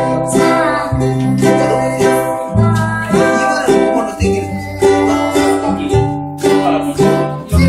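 A ukulele and a Crafter acoustic guitar played together in a song, with singing.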